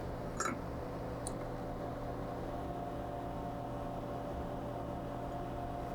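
Steady low electrical hum of room tone, with two faint clicks about half a second and a second in.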